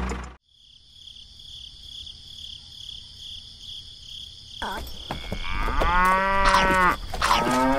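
A cow mooing: one long call from about five seconds in, then a second shorter one near the end, over a steady high chirring of insects.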